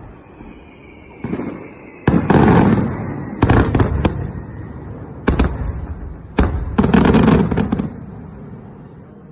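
Fireworks bursting overhead: about six loud, sharp bangs spaced irregularly, two of them close together near the end, each trailing off in a rumbling echo.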